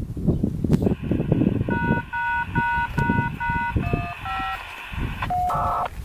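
Siren activation tones coming over a radio scanner, through static. Five identical two-note beeps come quickly, then two shorter beeps at different pitches, then a longer steady tone near the end. A low rumble fills the first second or so.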